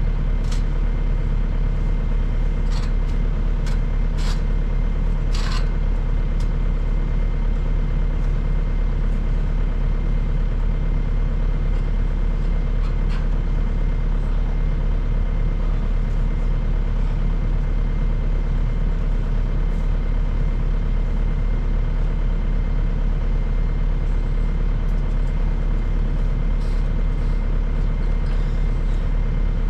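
Loader engine idling steadily, with a few short sharp clicks over it in the first few seconds.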